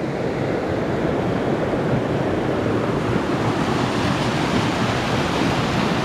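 Mountain stream rushing over rocks in small rapids and cascades, a steady rush of water close by.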